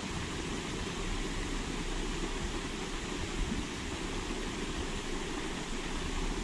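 Steady rushing hiss of a pond fountain spraying, with low wind rumble on the microphone.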